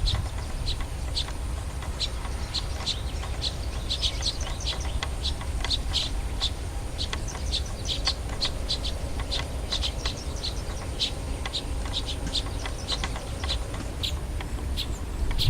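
Small birds chirping: many short, high chirps, several a second at an irregular pace, over a steady low rumble.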